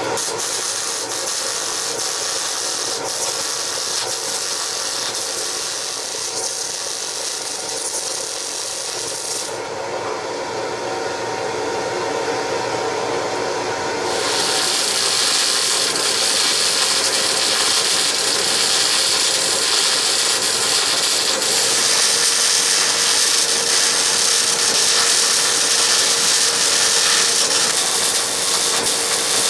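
MIG welder's arc crackling and sizzling as steel plates are welded together. The hiss thins out for a few seconds about ten seconds in, then comes back louder.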